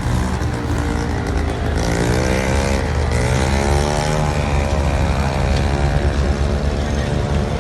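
A motor vehicle engine running with a steady low rumble. Its pitch swells and falls back about two to four seconds in.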